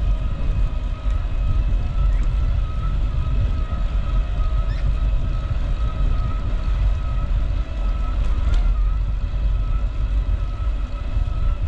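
Wind buffeting the microphone of a moving bicycle: a steady low rumble, with a steady thin whine above it and a brief click about eight and a half seconds in.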